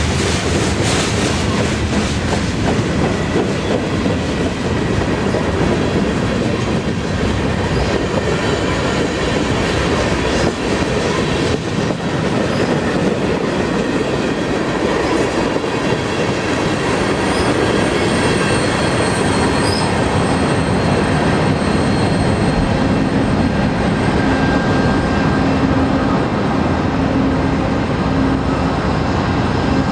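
Freight train of covered hoppers and tank cars rolling past at close range, wheels clicking and rumbling over the rails, with faint high-pitched wheel squeals. A low steady hum joins in over the last few seconds.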